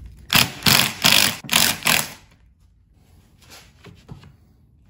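A pole saw gear head twisted and slid off the end of its shaft tube, the clamp scraping on the metal tube in four short rasps, then a few fainter scrapes near the end.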